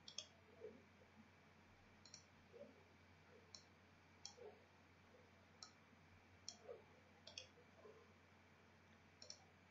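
Faint computer mouse clicks, irregular and about one a second, over near-silent room tone.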